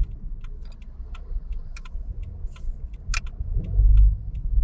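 Car's turn-signal indicator ticking steadily during a left turn, over a low engine and road rumble that swells near the end as the car pulls away.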